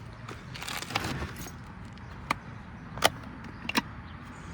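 Handling noises: a short rustling scrape about a second in, then three sharp clicks spread over the next two seconds.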